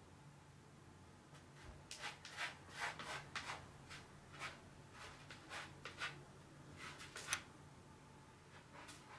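A cat scraping its paws through granular litter in a plastic litter box, covering its urine: a run of short scratchy strokes, from about two seconds in until near the end.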